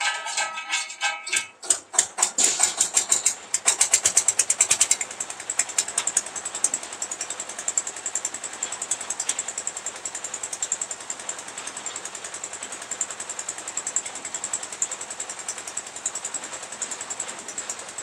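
Small stationary engine of a lift concrete mixer machine starting up. A few uneven firing knocks quickly speed up, and after about four seconds it settles into a steady run with a rapid, even beat.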